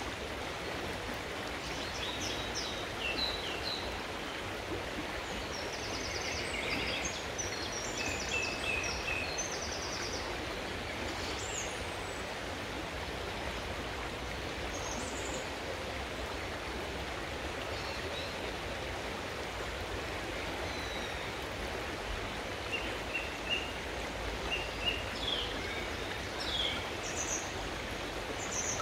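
River water flowing steadily, with small birds chirping and singing on and off, most busily in the first ten seconds and again near the end.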